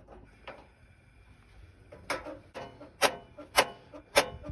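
Spark igniter of a camper's propane stove burner clicking repeatedly, starting about two seconds in, roughly one sharp click every half second, as gas is being brought through the freshly reopened line.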